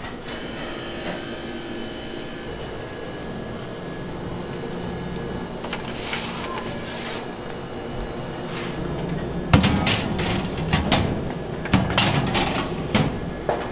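Steady background hum of a bakery kitchen, then, about two-thirds through, a run of sharp metal clatters and scrapes as metal muffin tins are slid into a perforated rack.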